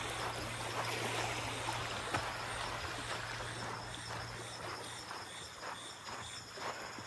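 Small waves washing and lapping on the sandy shore of Yonehara Beach, a steady watery hiss. A faint, high chirping repeats a few times a second over it.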